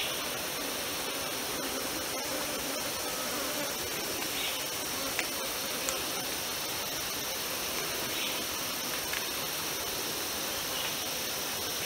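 Steady high-pitched drone of a forest insect chorus, with a few faint short chirps now and then.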